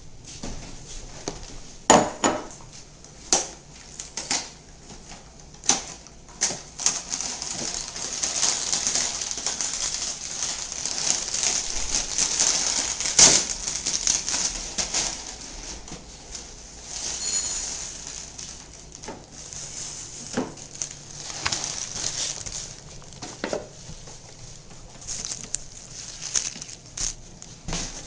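Breakfast cereal being served: the box's inner bag rustling and cereal rattling into a bowl, with scattered knocks and clinks of dishes.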